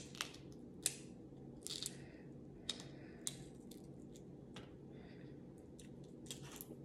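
Boiled shellfish shell being cracked and peeled apart by hand: irregular sharp cracks and crackles, the loudest about a second in, over a low steady hum.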